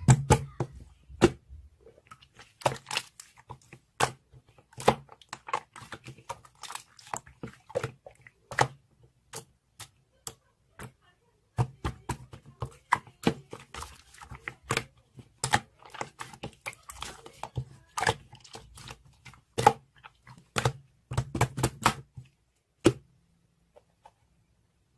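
Slime being squished and stretched by hand, giving irregular sharp clicks and pops in quick clusters, with a pause of about two seconds near the end.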